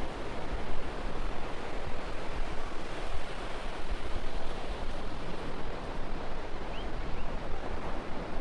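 Sea waves washing, with wind buffeting the microphone in a constant low rumble.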